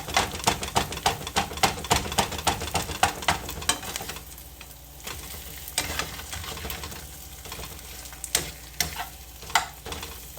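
Eggs frying hard in a pan, sizzling, with a utensil scraping and tapping against the pan: rapid strokes for the first four seconds or so, then only a few now and then.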